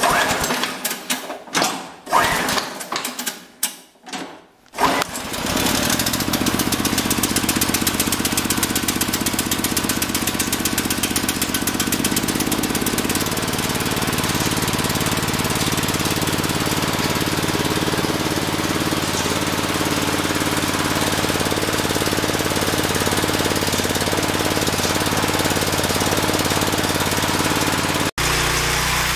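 Cold start of a 13 hp Chinese Honda-clone single-cylinder engine on choke: a few short cranking attempts, then it catches about five seconds in and runs steadily. Its note changes about thirteen seconds in.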